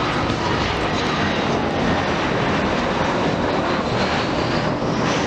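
Airbus A320-214's CFM56 jet engines running, a loud steady noise with a faint thin high whine, as the airliner arrives.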